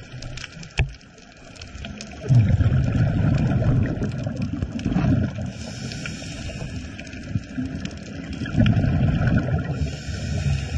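Underwater sound through a dive camera's housing: a scuba diver's exhaled bubbles rumbling in two long swells, the first about two seconds in and the second near the end, over a constant fine crackling. A single sharp click comes just under a second in.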